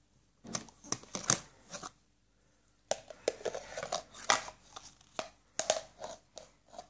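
Irregular light knocks and clicks of plastic as a baby handles a plastic sippy cup and plastic toys, with a brief pause partway through.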